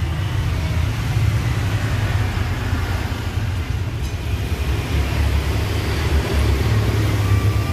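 Stone pestle rubbing and grinding a thick, wet sauce paste in a wide stone mortar, over a steady low rumble.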